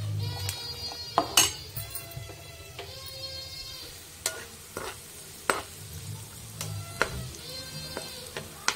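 Frying in ghee in a pan while a metal spatula stirs: sizzling, with sharp knocks of the spatula against the pan and a few short squeaky scrapes.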